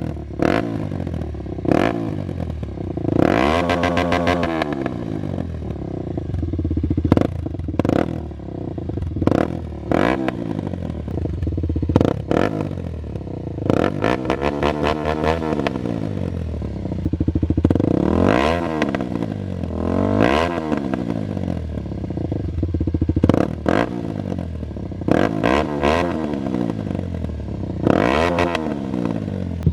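Kawasaki KLX300's single-cylinder four-stroke engine breathing through a Barker's aftermarket exhaust, running with short throttle blips about eight times, the pitch rising and falling quickly each time.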